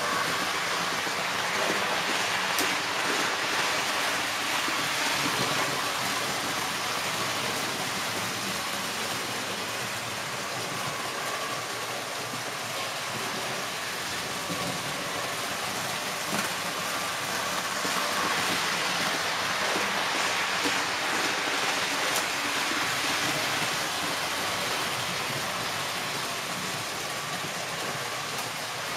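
Märklin model train, a BR 103 electric locomotive pulling tin-plate TEE coaches, running on metal track: a steady rattling hiss of wheels on rails and the coaches' sliding pickup shoes, with a faint motor whine, growing louder twice as the train comes close.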